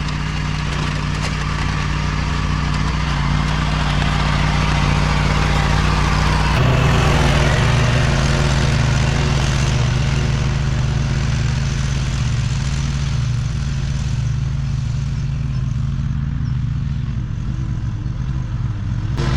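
Tractor engine running steadily under load while pulling a mower through pasture grass, with an abrupt shift in the engine sound about six and a half seconds in.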